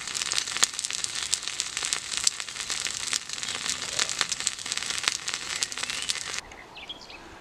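Black pudding sizzling in a small cast iron skillet over campfire embers, a steady hiss full of sharp crackles and pops. It cuts off suddenly about six and a half seconds in.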